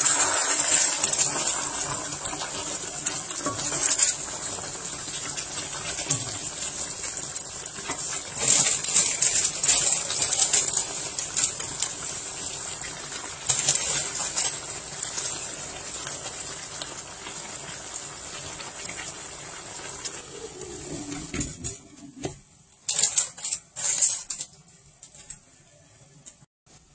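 Coconut-milk sauce with tilapia and eggplant simmering and sizzling in a wok, with louder bursts as spinach is added. About three-quarters through the sizzle drops away and a few short clatters follow as a glass lid is set on the pan.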